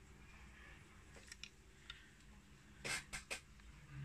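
Faint clicks and taps of a plastic toy locomotive being turned over in the hand, with a quick run of three sharper clicks about three seconds in.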